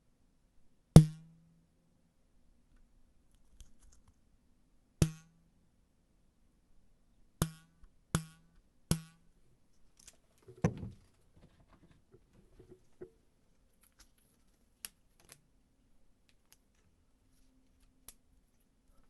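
Cartoon 'boing' sound effect takes: five sharp plucked twangs, each with a short low ring, the last three in quick succession. A brief rattling clatter follows, then a few faint ticks.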